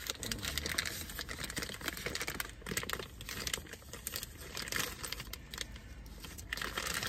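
Clear plastic packaging bag crinkling and rustling in the hands as it is opened and peeled off a drone, a dense run of small irregular crackles.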